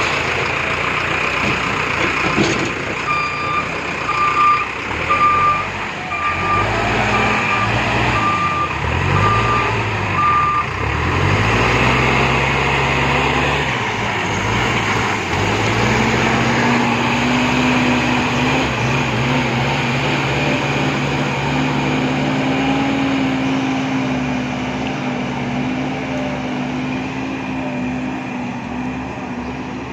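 Bull backhoe loader's diesel engine running while its reversing alarm beeps about ten times at an even pace. The engine revs rise and fall, then settle into a steady higher run.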